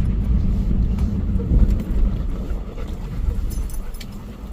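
Low, steady rumble of a vehicle's engine and road noise, heard from inside the cabin.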